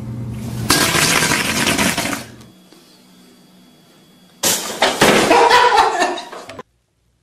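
A sudden sharp bang about four seconds in, then a loud clatter as an ironing board tips over and crashes down. It cuts off abruptly. Earlier there is a separate burst of loud noise over a low hum.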